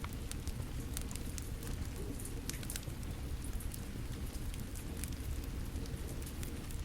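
Steady rain falling together with a wood fire crackling, with irregular sharp pops and snaps scattered over the rain's even hiss.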